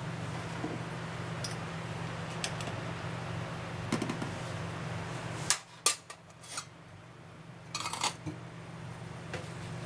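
A metal spoon clinking against a square metal pot as eggs are lowered into the water, with two loud clanks about halfway through and a metal lid clattering onto the pot near the end. A steady hiss and hum underneath drops away suddenly about halfway through.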